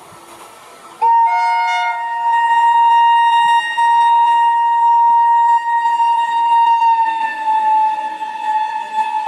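An Indian Railways WAP-7 electric locomotive's horn blows one long, loud, steady blast starting about a second in, with a second, lower tone joining it briefly at the start. Near the end its pitch drops slightly as the locomotive passes, and the rumble of the passing LHB coaches rises beneath it.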